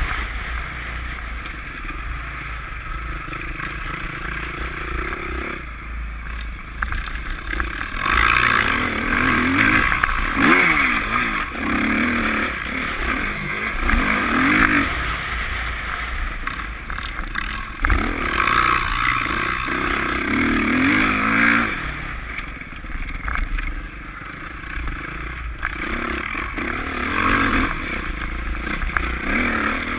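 Dirt bike engine under way, its pitch rising and falling again and again as the throttle is opened and eased. There are two longer, louder stretches of high revs in the middle.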